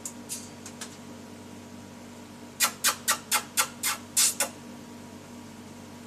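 Rainbow lorikeet giving a quick run of about seven shrill screeches, roughly four a second, after a few short chirps at the start. A steady low hum runs underneath.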